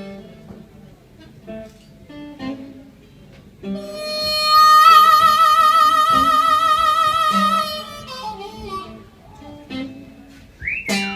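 Blues intro on acoustic guitar and harmonica: short picked guitar notes, then a harmonica holds one loud note for about four seconds with a steady wavering vibrato. Single notes and a quick upward slide follow near the end.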